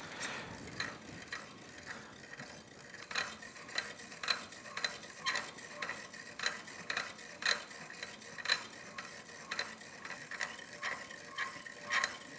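Hand-cranked piston ring gap filer being turned, its abrasive wheel grinding the end of a piston ring: a steady run of scraping clicks about twice a second, fainter for the first few seconds. The ring's end gap is being filed wider to reach the required gap.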